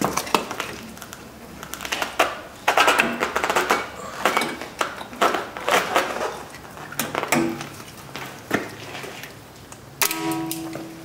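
Metal drum-brake hardware (shoes, springs and locking pliers) clicking, clinking and scraping as the shoe springs are pulled into place, in a run of irregular sharp clicks, with a short steady ringing tone near the end.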